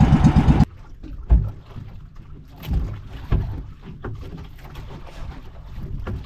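Fishing boat's engine running with an even pulse, then cut off abruptly less than a second in. A few dull knocks and faint water sounds follow.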